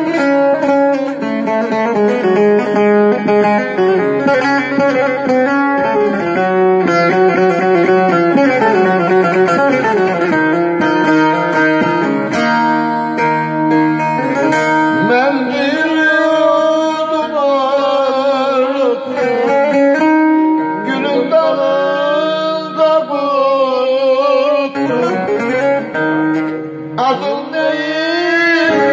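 Live Turkish folk song: a bağlama plays a fast plucked melody, and about halfway through a man starts singing into a microphone in long, wavering held notes over it.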